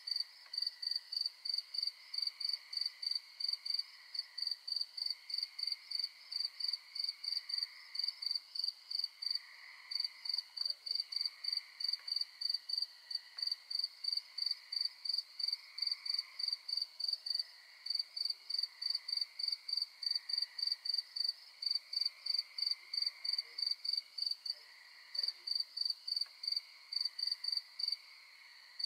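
Night chorus: a cricket chirping in a steady, rapid rhythm of about three chirps a second, pausing briefly twice near the end. Beneath it is a softer, lower trilling chorus of tree frogs that swells and fades every couple of seconds.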